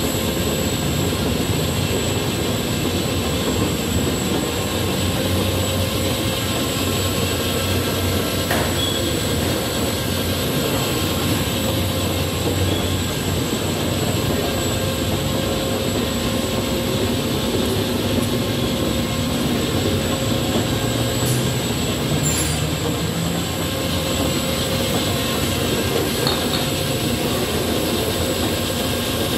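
Manesty Novapress rotary tablet press running: a steady mechanical noise with a constant high whine. Two brief clicks come through, a third of the way in and again about three quarters of the way through.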